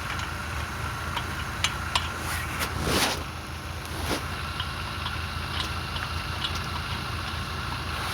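A vehicle engine idling with a steady low hum, with scattered light clicks and a brief whoosh about three seconds in.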